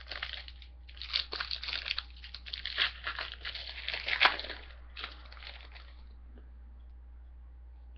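Foil wrapper of a trading card pack crinkling and tearing as it is opened, in irregular crackles that stop about six seconds in.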